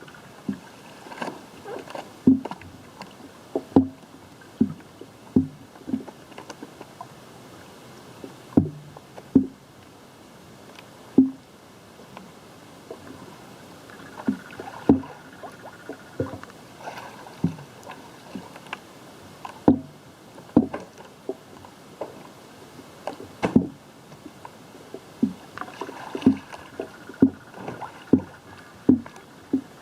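Pool water slapping against an old camera's microphone beside a floating foam-and-fabric kayak: irregular sharp slaps, about one or two a second, over a faint steady water noise.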